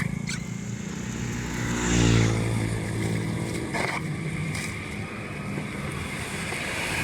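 An engine running steadily, with a swell in level about two seconds in and a few sharp knocks.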